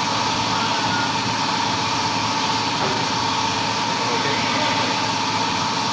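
Steady machine running noise with a constant tone, even in level throughout.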